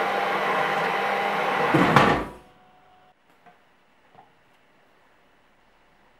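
Electric stick blender running steadily as it purées fruit in a ceramic bowl, with a sharp clatter about two seconds in just as the motor is switched off and winds down. After that, only a few faint light knocks.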